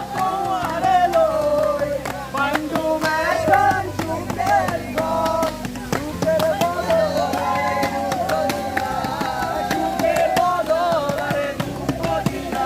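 Background music: a sung melody over instruments, with a steady beat.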